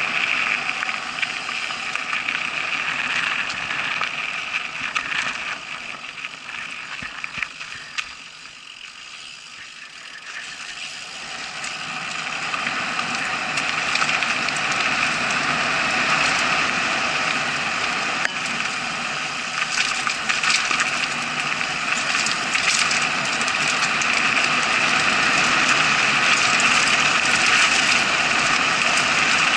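Mountain bike riding fast down a gravel and dirt trail, heard through an action camera's case: a continuous rush of tyre and wind noise with rattling and clicks from the bike. It dips for a few seconds about a third of the way in, then rises again as the bike speeds up, with the rattling busiest near the end.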